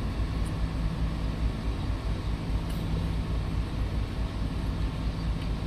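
A steady low mechanical hum of running machinery, with no distinct separate sounds.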